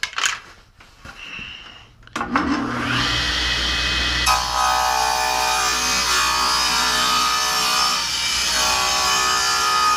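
Grizzly G0715P table saw switched on after a couple of knocks, its motor spinning up with a rising whine and then running steadily. From about four seconds in, the blade rips a board fed along the fence, a steady cutting noise over the motor's hum.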